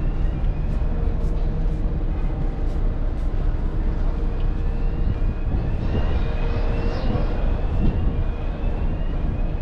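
A steady low rumble with wind-like noise over it. Faint short rising chirps recur every second or so, with light clicks.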